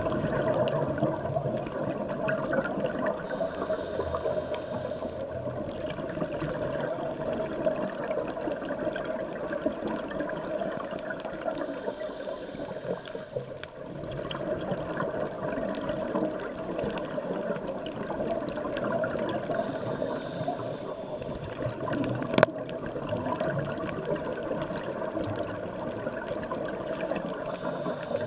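Underwater ambience recorded on a camera: a steady, muffled rush of water with faint crackling, and one sharp click about 22 seconds in.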